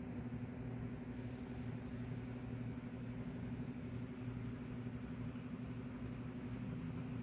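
Kitten purring steadily, a low even rumble that dips briefly about once a second as it breathes in and out.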